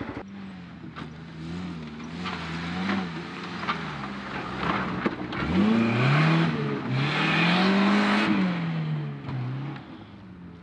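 Off-road 4x4's engine working at low revs, then revving up hard about halfway through, held high under load and easing off near the end, with a few scattered knocks.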